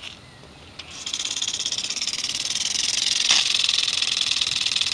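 Garden sprinkler starting up about a second in, after a faint click, as the motion detector trips the washing-machine solenoid inlet valve feeding it; water sprays with a steady hiss and a fast, even rattle.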